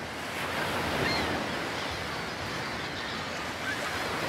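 Seawater surging and washing over intertidal rocks into a rock pool: a steady rushing of surf that swells a little about a second in. A few faint, short, high chirps sound over it.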